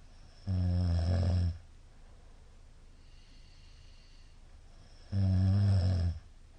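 A middle-aged man snoring loudly in his sleep: two low, rumbling snores about a second long each, some four and a half seconds apart.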